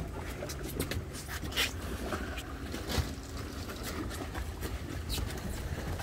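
Boat engine idling with a steady low hum, with scattered light clicks and knocks.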